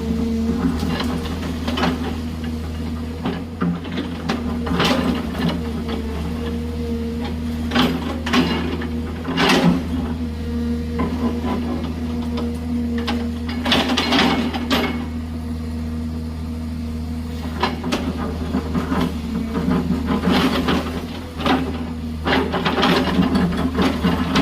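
Excavator's diesel engine running steadily under load, with repeated scraping and clattering as the bucket cuts into gravelly hillside soil and rock.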